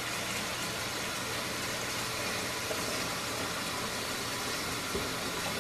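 Kitchen faucet running a steady stream of water into a partly filled pot in a stainless steel sink, with one light knock about five seconds in.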